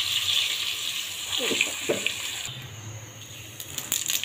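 Hot oil sizzling in a pan around frying stuffed tinda gourds, fading over the first couple of seconds. Then cumin seeds crackling and popping in hot oil, the crackles growing denser near the end.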